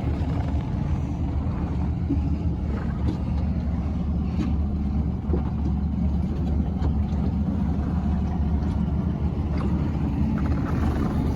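A boat's engine running steadily as a low, even rumble, with a few faint ticks over it.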